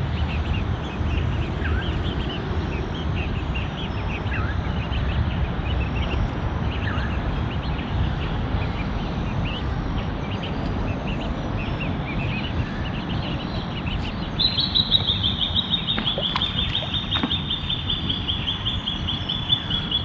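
Pacific black duck ducklings peeping in short high chirps over a steady low rumble. About fifteen seconds in, a fast run of high notes starts and keeps going.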